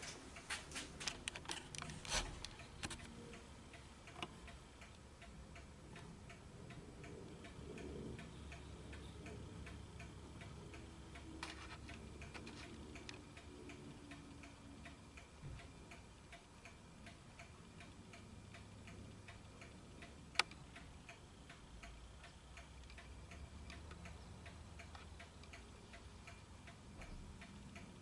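Faint, regular ticking, with a quick run of louder clicks in the first few seconds and one sharp click about twenty seconds in.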